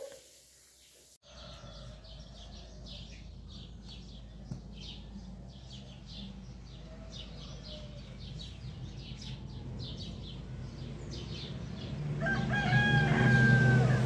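Small birds chirping in quick, repeated short notes. About twelve seconds in, a rooster crows once, a broken call under two seconds long that is the loudest sound.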